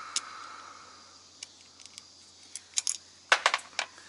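Light clicks and taps of small metal parts and hand tools being handled: a few scattered ones, then a quick run of sharper clicks a little past three seconds in.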